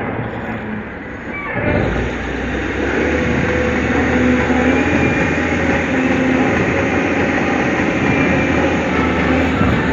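Heavy diesel engine of an SDLG wheel loader working. It revs up under load about two seconds in, then runs hard and steady.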